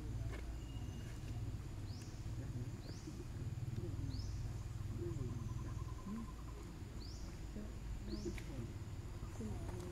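A bird giving short, high, rising chirps in two groups of three, over a steady low rumble.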